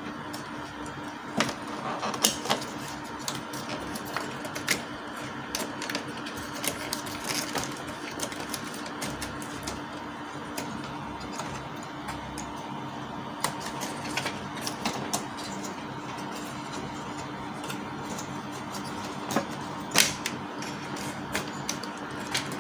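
Scattered small clicks and taps of plastic hose and printer parts being handled inside an opened inkjet printer's chassis, over a steady hum. The sharpest clicks come about two seconds in and again near the end.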